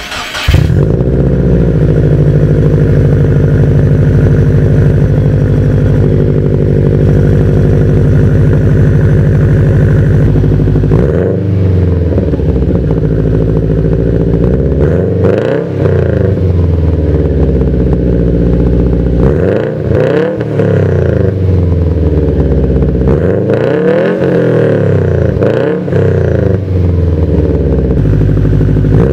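Exhaust note of a 2011 Subaru WRX's turbocharged 2.5-litre flat-four through a TurboXS catback exhaust and Invidia downpipe, on a stage 2 tune. It comes on suddenly about half a second in and idles steadily. From about eleven seconds in it is revved in about five free-revving blips, each rising and falling in pitch, with a midrange tone that isn't too deep.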